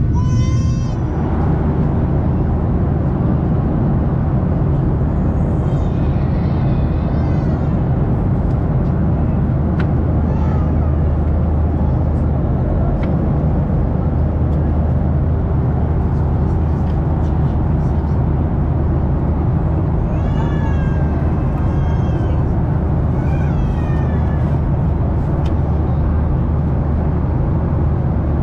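Steady cabin roar of a Boeing 737-800's CFM56-7B engines and airflow heard from a window seat in climb after takeoff. Several short high-pitched cries with wavering pitch sound over it now and then.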